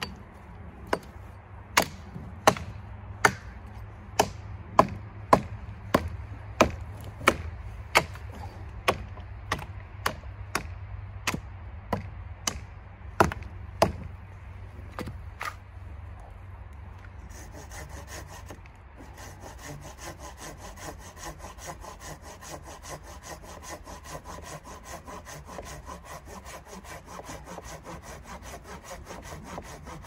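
A hatchet chopping into a pine log: about twenty sharp blows, roughly one and a half a second, for the first fourteen seconds. After a short pause, a red-handled folding hand saw cuts through the pine log with quick, steady back-and-forth strokes.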